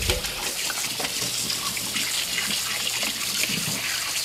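Kitchen sink tap running in a steady gush, water splashing into the sink while something buttery is rinsed under it.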